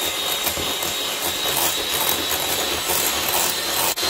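Electric hand mixer running, its twin beaters whipping cream in a glass bowl as melted gelatin is beaten in, with a steady high whine over the motor noise. The sound drops out for a moment near the end, then carries on.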